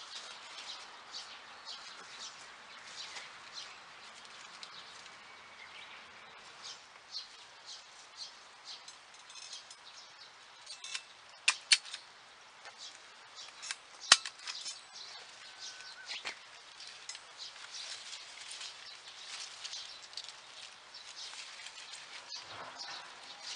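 Rain pattering on the plastic-film roof of a rain-shelter greenhouse: a steady hiss full of irregular drop ticks. A few sharper, louder clicks come about halfway through.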